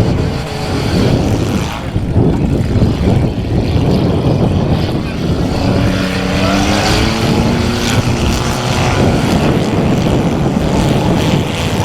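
Compact demolition derby car engines running loud, with one revving up and down in pitch around the middle.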